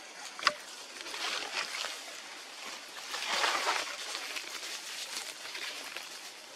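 Outdoor forest ambience: a steady hiss with a single sharp click about half a second in and a louder swell of noise a little past the middle.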